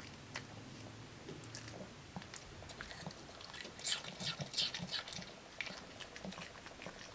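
A dog chewing and crunching apple, with irregular crisp crunches that come in a louder cluster about four seconds in.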